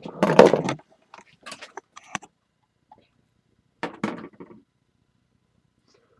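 Knocks, clatter and rustling of things being handled on a workbench: a sharp knock at the start, then a dense clatter, a few small clicks, and another short burst about four seconds in.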